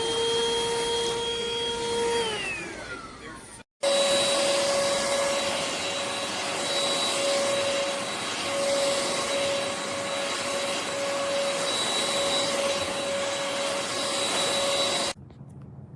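Cordless stick vacuum's motor running with a steady whine that winds down about two seconds in. After a brief break it runs again at a steady pitch with a rush of air, then cuts off suddenly near the end.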